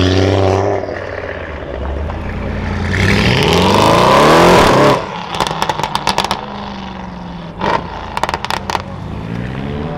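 Audi RS3's five-cylinder pulling away in the first second, then an Audi RS6 Avant's twin-turbo V8 accelerating hard with a rising note that cuts off abruptly about five seconds in. Two quick runs of sharp exhaust pops and crackles follow on the overrun, the first right after the lift-off and the second near the end.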